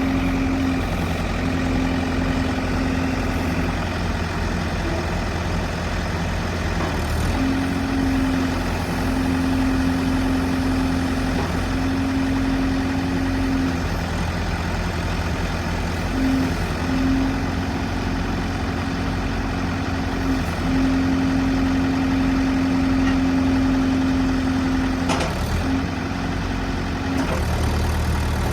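John Deere 110 loader backhoe's diesel engine running steadily, with a steady whine that stops and starts again several times. A couple of sharp knocks are heard, and the engine note changes near the end.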